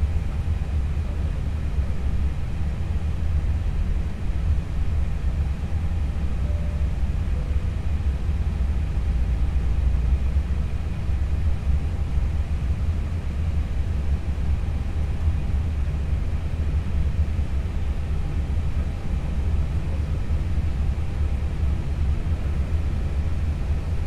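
Steady low rumble and hum inside a parked Airbus A320's cockpit, with faint steady tones above it and no change.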